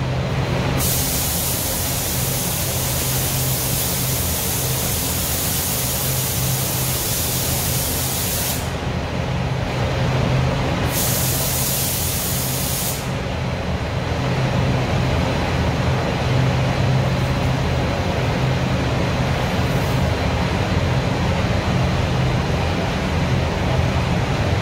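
Spray gun hissing as it atomises waterborne basecoat in two passes: a long one of about eight seconds near the start, then a short one of about two seconds after a pause. The spray-booth ventilation runs underneath throughout as a steady rush with a low hum.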